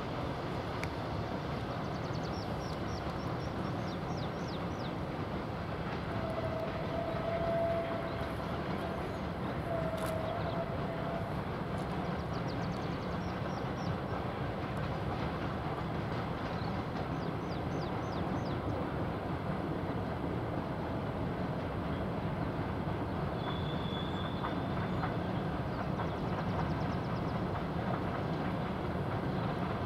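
Heavy freight train worked by three VL11M electric locomotives, two at the head and one pushing, heard from afar: a steady running noise of locomotives and wagons on the climb. Two long steady tones sound twice, several seconds in, a few seconds apart.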